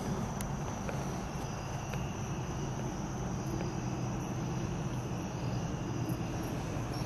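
Steady chorus of night insects trilling at a constant high pitch, over a low steady hum.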